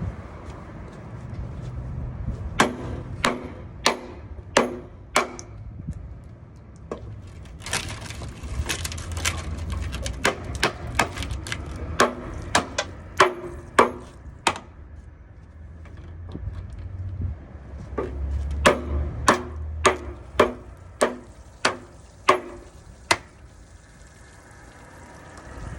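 Repeated hammer blows striking the drain valve of a 50-gallon electric water heater to break it off, in three runs of sharp, ringing knocks about one to two a second, over a low rumble.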